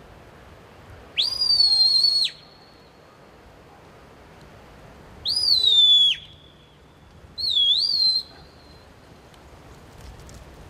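A sheepdog handler's whistle commands to a working sheepdog: three separate high, piercing whistles. The first rises and holds for about a second, the second rises and then drops away, and the third warbles up and down twice.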